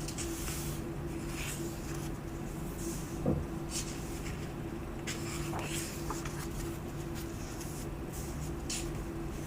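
Paper pages of a book being turned by hand: several brief, soft swishes of paper, with a dull thump about three seconds in, over a steady low hum.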